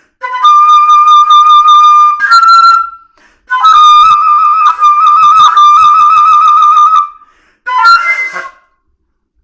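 Solo flute playing long, high held notes with vibrato, in separate phrases with short breaths between them. The phrases end on a short, breathy accented note about eight seconds in.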